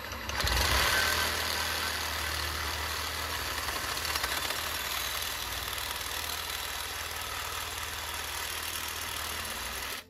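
Reciprocating saw cutting through a bike fork's steerer tube, guided by an old stem. It starts about half a second in, runs steadily, and cuts off suddenly at the end.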